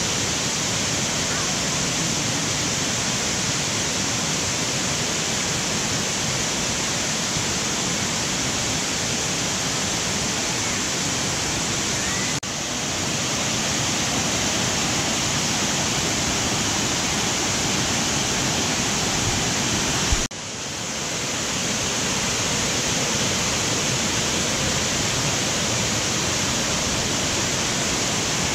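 Loud, steady rush of water from Kaparkan Falls' tiered cascades pouring over their limestone terraces. The rush dips slightly about twelve seconds in and breaks off for an instant about twenty seconds in, then picks up again.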